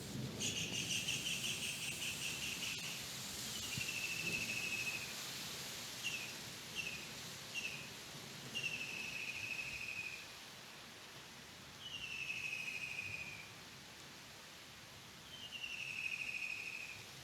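Rapid trilled calls of a small animal, repeated in phrases about a second or two long that fall slightly in pitch, with three short chirps in the middle, over a faint outdoor background.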